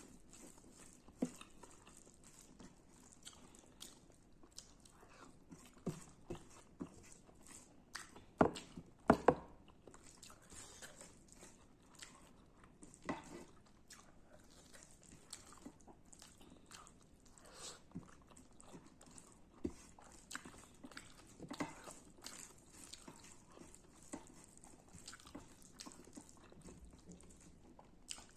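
Close-miked eating of radish and rice: irregular small crunches, clicks and chewing sounds. A few sharper, louder crunches come about eight to nine seconds in.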